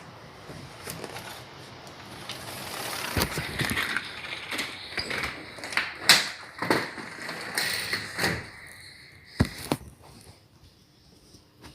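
Rustling, clattering handling noise with a run of sharp knocks and clicks. It builds through the middle, with the loudest knock about halfway, two more sharp knocks a few seconds later, and then it dies away to quiet.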